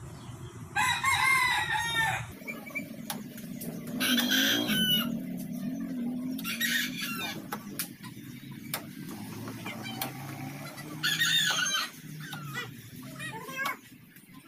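Roosters crowing four times, a few seconds apart, with scattered sharp clicks between the crows.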